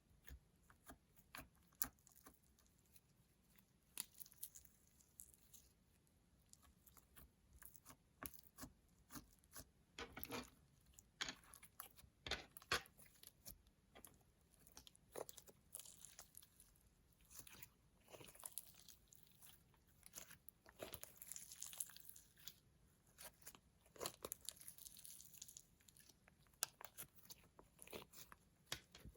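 Clear slime mixed with makeup being worked by hand: faint, irregular sticky clicks and crackles, denser in the second half.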